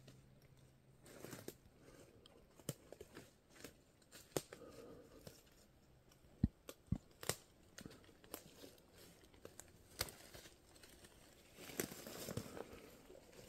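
Faint crackling and rustling: scattered sharp clicks and cracks, with short bouts of rustling about a second in, around four to five seconds in, and again near the end.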